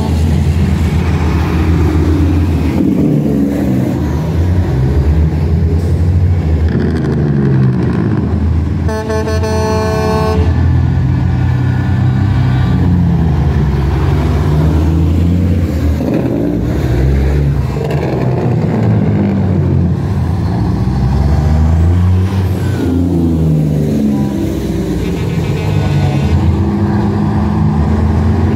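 Diesel engines of semi trucks running as the big rigs drive past one after another at low speed, their engine notes rising and falling as each passes. A truck horn sounds once about nine seconds in for about a second and a half, with a fainter horn near the end.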